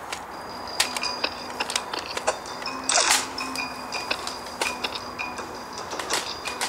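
Toy foam-dart blasters firing and being cocked: a run of sharp clicks and snaps, with one louder burst about three seconds in.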